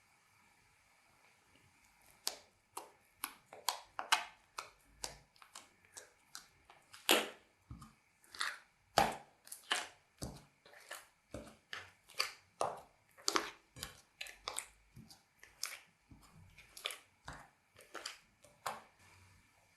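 Slime being kneaded and mixed by hand, making a run of sharp, wet clicks and pops, about two or three a second, that start about two seconds in.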